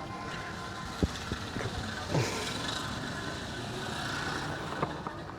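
Busy street background noise: a steady hum like passing motor traffic, with a couple of sharp clicks, one about a second in and one near the end.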